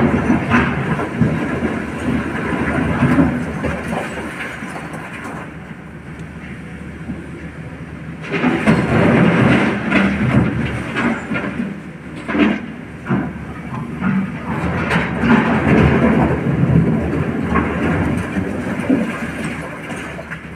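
SANY excavator running and working its bucket through broken quarry rock, with the scrape and clatter of stones. About eight seconds in, a bucket of rock is dumped into a Tata Prima dump truck's steel body, a loud crashing clatter lasting a few seconds, followed by more knocks and rattling of stones.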